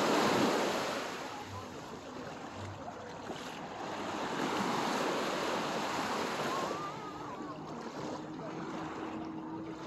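Small waves breaking and washing up onto a sandy shore, swelling near the start and again around the middle.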